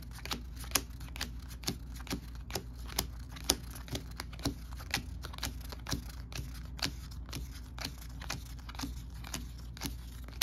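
Stiff game cards being thumbed through one at a time, a light snap or flick about three or four times a second.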